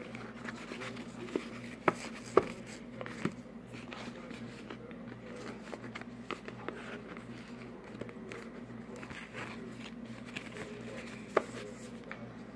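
Baseball cards being handled on a table: soft sliding and rustling with a few sharp clicks of card edges tapping together, the loudest about two and a half seconds in and another near the end, over a steady low hum.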